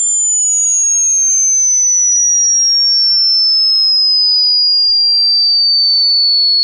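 A loud, very high-pitched electronic sine tone sliding slowly and steadily down in pitch, with fainter tones gliding up and down alongside it.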